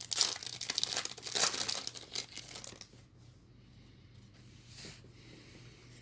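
Foil wrapper of a trading card pack being torn open and crinkled. It makes a dense crackling for the first three seconds or so, then goes quiet apart from a brief rustle near the end.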